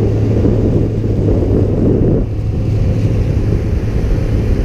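Speedboat engine running steadily with a constant low hum while the boat moves along the water, with wind buffeting the microphone; the rush eases slightly about two seconds in.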